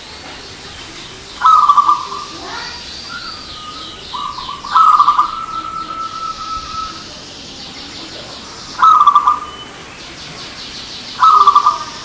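Local zebra dove (perkutut) cooing: four short trilled coo phrases a few seconds apart, one trailing into a long held note. Fainter high twittering of small birds runs between them.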